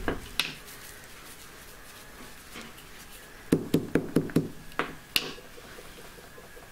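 Small hammer knocking on a lump of frozen, brittle propolis wrapped in a paper napkin on a tiled floor, crushing it to crumbs: two knocks at the start, then a quick run of about six knocks about three and a half seconds in and two more just after.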